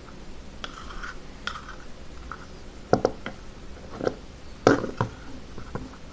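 Homemade slime being handled and squeezed, giving a few separate wet clicks and pops, the loudest about three seconds in and twice more near the end.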